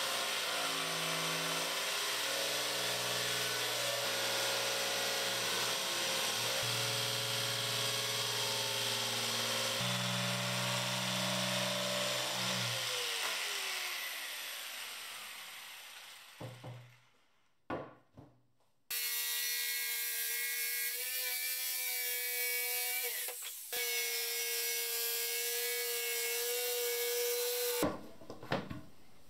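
Bosch PST 65 corded jigsaw cutting through MDF board. It runs steadily for about thirteen seconds, then winds down with a falling tone. After a few knocks, a power tool runs again for about nine seconds and stops, followed by a few light knocks.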